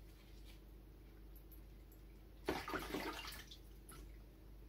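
Water splashing and sloshing in a plastic basin for about a second, starting around the middle, as aquarium filter parts and a sponge are rinsed in it.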